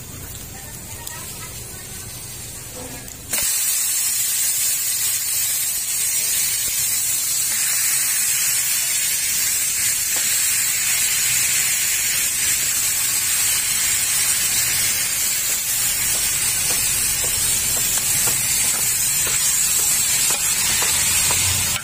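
Raw chicken pieces sizzling in hot margarine with sautéed garlic and onion in a pot. A faint sizzle turns suddenly into a loud, steady one about three seconds in, as the chicken goes into the pan.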